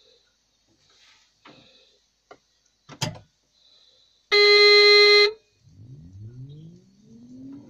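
Caterpillar 745 articulated dump truck's horn sounds one steady blast about a second long, after a few clicks in the cab. The engine is then cranked and catches, its pitch rising as it spins up to idle.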